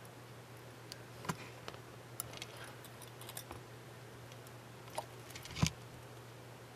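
Small scattered clicks and taps of metal tweezers handling a fine railing part against a plastic ship model, the loudest tap about five and a half seconds in, over a low steady hum.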